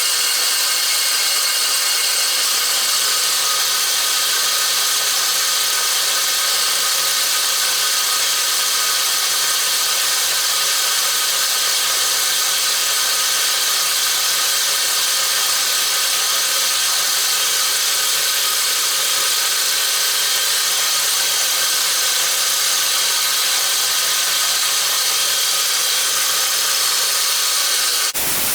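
Belt grinder running with an 80-grit belt, grinding the bevels of a steel cutlass blade: a loud, steady grinding hiss over an even motor hum. It stops abruptly near the end.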